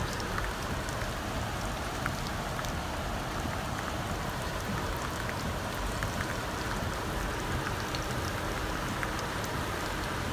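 Steady rain falling, with scattered drops ticking as they hit the car.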